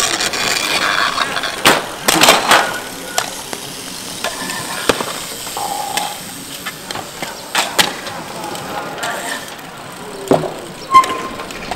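Hardcourt bike polo play: several sharp knocks of mallets hitting the ball and clattering against bikes, over bicycle tyres rolling and scrubbing on asphalt, with brief shouts from players.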